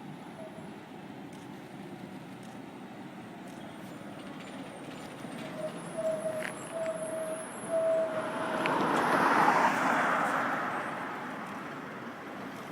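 A heavy truck passing close at low speed, its noise swelling to a peak about nine to ten seconds in and then fading. A few short beeps sound just before it.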